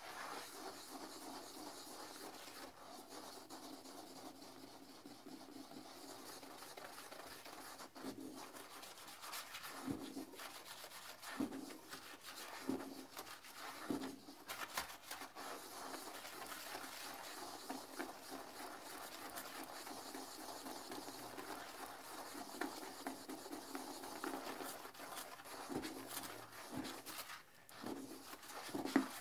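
A plastic toilet brush scrubbing a porcelain toilet bowl through soapy cleaner foam: continuous rubbing and scratching of bristles against the bowl. A few louder strokes stand out from about ten seconds in, and again near the end.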